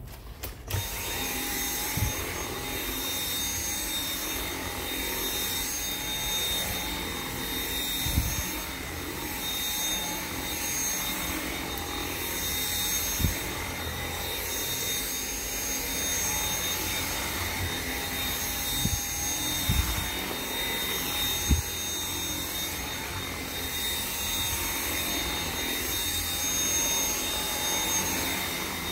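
Dyson V7 Motorhead cordless stick vacuum switching on about a second in and running steadily over carpet, with a steady high motor whine. A few short low thumps are heard now and then as it works.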